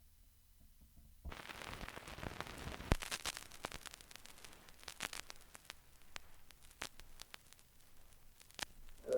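Vinyl record surface noise: a steady hiss that comes in suddenly about a second in, with scattered clicks and pops from the groove, as of a worn 1970s record playing with no sound effect yet.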